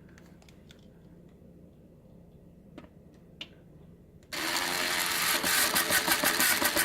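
A few faint handling clicks, then about four seconds in a power screwdriver starts up and drives a screw home, its motor whirring loudly with a fast, even rattle.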